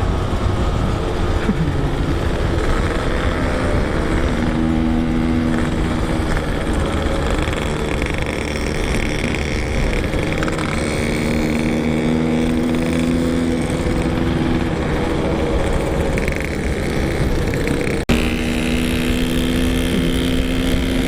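Yamaha RX-King single-cylinder two-stroke motorcycle engine running under way, holding a steady pitch for long stretches with small changes in throttle, over wind rumble. The sound cuts out for an instant near the end.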